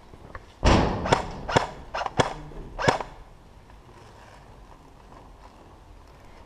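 Airsoft Glock 17 gas pistol firing six sharp shots over about two and a half seconds, spaced irregularly.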